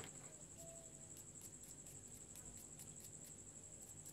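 Near silence: a faint, steady high-pitched whine with soft, irregular ticks.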